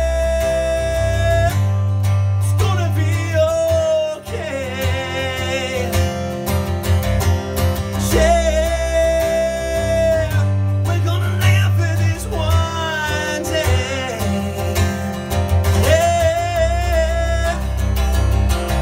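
Guitar music from an improvised song: guitar chords under long, held melody notes that slide into pitch and waver, in about four phrases with no clear words.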